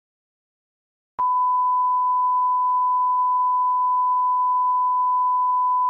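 Steady 1 kHz television test-card tone, one unbroken pure beep, starting suddenly about a second in after silence.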